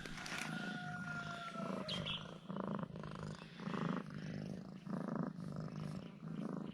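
Domestic cat (Chinese pastoral cat) purring close up, in a steady rhythm that swells and fades with each breath in and out.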